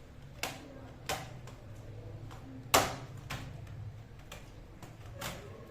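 Plastic snap clips of an HP 240 G5 laptop's bottom case releasing as the panel is pried open by hand: a series of about five sharp clicks, the loudest nearly three seconds in.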